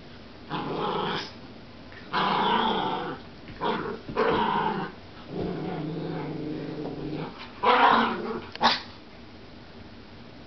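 Two Schnoodles growling at each other while play-wrestling, in short bursts of a second or so, with one longer steady growl in the middle; the growling stops a little before the end.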